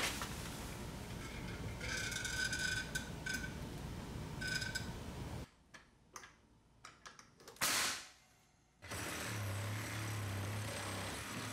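Pneumatic framing nailer firing once into a wooden bottom plate: a single short, sharp burst among a few faint clicks. About a second later a steady low hum sets in.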